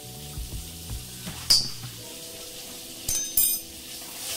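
A steel spoon clinks sharply against a metal wok, once about a second and a half in and a few quick times near the end. Under it, faint sizzling of butter frying with chilli powder.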